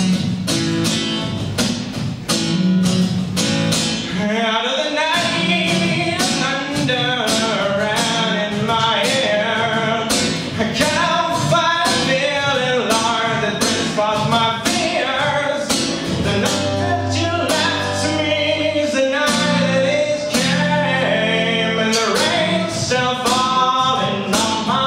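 Steel-string acoustic guitar strummed in a steady rhythm, with the guitarist singing over it from about four seconds in.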